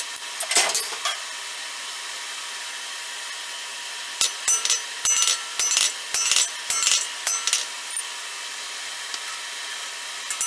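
A drill bit cutting a hole through the centre of a small star of thin sheet steel, grinding in a series of short, uneven spurts.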